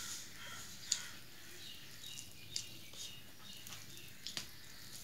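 Fingers mixing rice and curry on a stainless steel plate, with soft wet squishing and a few sharp clicks of fingers against the metal, about one, two and a half and four seconds in.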